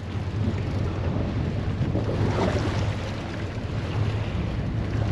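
Wind buffeting the microphone over the steady low hum of a fishing boat's engine.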